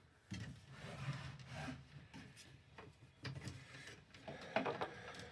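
Low rubbing and scraping from hands handling an old metal desk fan, with a few light taps.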